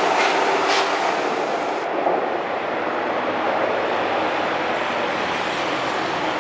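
São Paulo Metro Frota A train pulling out past the platform: a steady rolling rumble with a couple of wheel clacks in the first second. The hiss at the top drops away about two seconds in as the last car clears, and a steady rumble continues.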